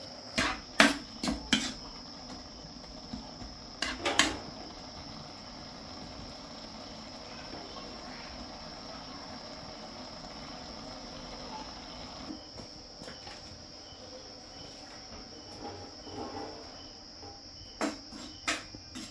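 Large knife chopping greens on a wooden chopping board: a few sharp knocks in the first seconds, with crickets chirring steadily and high-pitched throughout. A few more knocks near the end.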